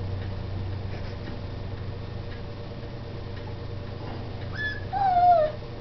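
Steady low hum with faint ticking, then near the end a puppy's brief high whine followed by a longer whine that falls in pitch.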